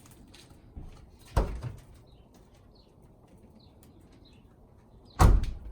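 Two dull thumps, about four seconds apart, the second the louder, with birds chirping faintly.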